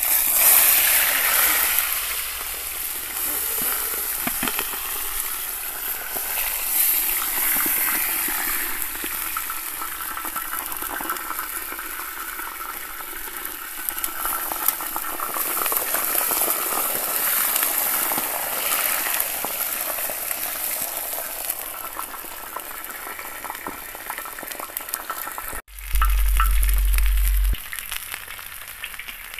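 Whole nutria carcass sizzling in hot oil on a steel saj pan: a loud sizzle starts the instant the meat goes down, then settles into steady frying that slowly eases. Near the end a low rumble lasts about a second and a half.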